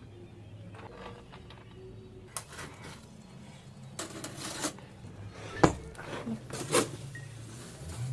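Scattered clicks, scrapes and knocks of kitchen handling, such as utensils and dishes, over a steady low hum. The loudest is one sharp knock about five and a half seconds in.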